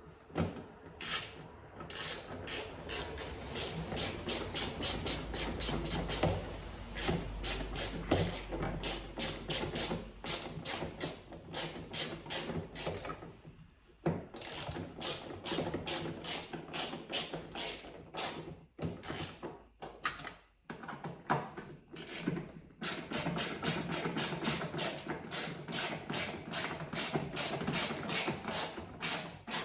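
Hand ratchet wrench clicking in quick, even runs of about four clicks a second, with short pauses between runs, as the motorcycle headlight's mounting bolts are tightened.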